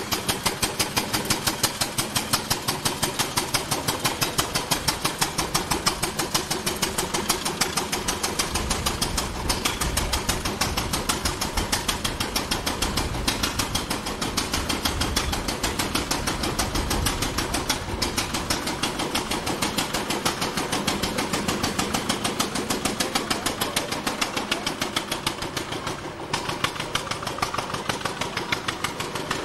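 The engine of an early horseless carriage running with a steady, rapid, evenly spaced chugging beat.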